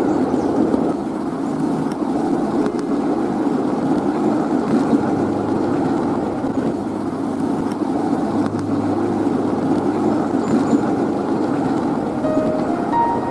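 Steady rumble of a 7¼ in gauge miniature railway train running along its track, heard from on board.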